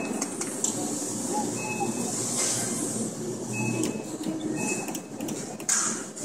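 Arcade background noise: a steady mechanical hiss and hum with several short electronic beeps and a few clicks.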